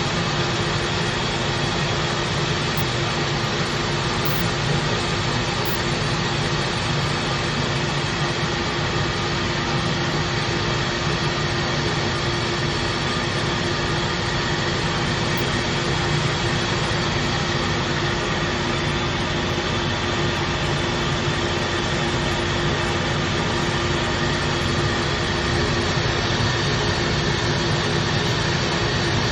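Coin-operated rice polishing mill running steadily, milling brown rice into white rice, a constant machine whir with a steady hum.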